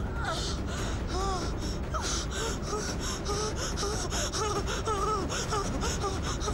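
A woman's rapid, frightened panting gasps, several a second, over wavering, gliding tones.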